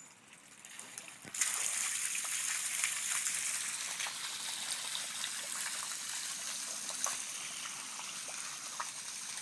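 Water spewing out of the ground into a flooded yard: it starts suddenly about a second and a half in as a steady gushing rush with small splashes, easing slightly toward the end.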